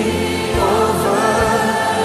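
Background worship song: voices singing sustained, held lines over music.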